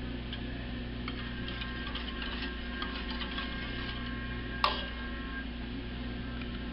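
Wire whisk stirring melting soap in a stainless steel saucepan, its wires ticking and clinking against the pan in scattered light clicks, with one sharper clink partway through. A steady low hum runs underneath.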